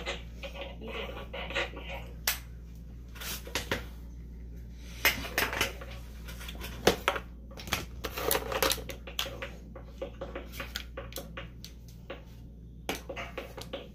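Makeup items being handled: irregular clicks, taps and light clatter of small hard cases and brushes, heavier in a few clusters in the middle. A steady low hum runs underneath.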